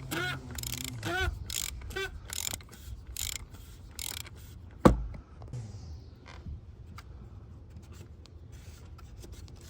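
Socket ratchet clicking and creaking in short strokes as the oil filter cap is loosened, then one sharp knock about five seconds in, followed by a few light clicks.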